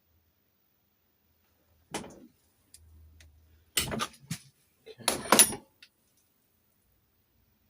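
Metal key blank clicking and rattling in a Chubb detector lever lock as it is worked against the levers and withdrawn, in three short bursts, the last the loudest.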